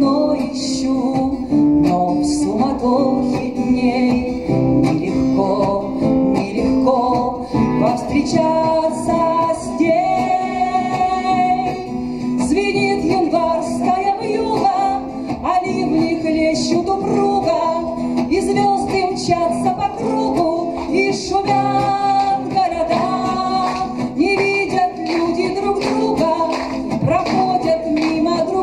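Music from a pop song: a sung melody over instrumental accompaniment with a steady beat.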